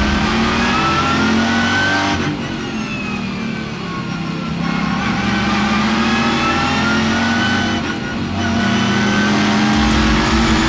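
Ford Mustang race car's V8 engine heard from inside the cockpit under hard acceleration, its pitch rising, easing off about two seconds in, then climbing again, with another short dip about eight seconds in before it rises again.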